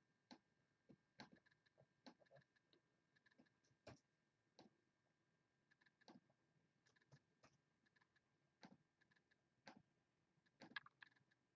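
Faint, irregular clicks of a computer mouse and keyboard, roughly one click a second with a quick cluster of them near the end.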